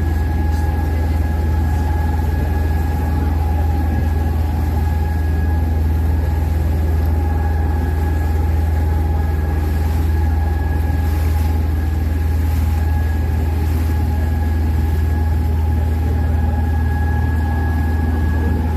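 Open tour boat's engine running steadily under way: a constant low drone with a thin steady whine over it.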